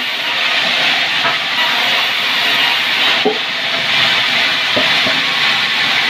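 Sawmill saw cutting sengon (albizia) timber into beams: a loud, steady hissing noise.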